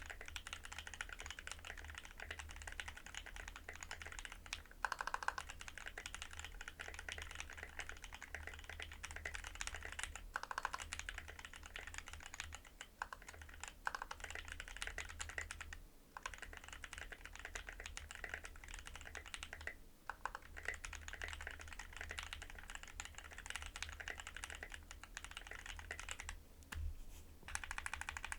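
Fast, continuous typing on an Anne Pro 2 60% mechanical keyboard fitted with a copper plate, lubed Halu-Halo switches and ABS doubleshot keycaps, a steady stream of key clacks with a couple of brief pauses.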